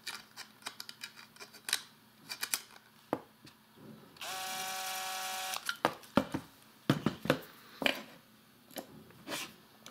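Cordless drill-driver running briefly, a steady motor whine for about a second and a half midway, driving a screw into a 3D-printed plastic housing. Around it, sharp clicks and knocks of small parts being handled.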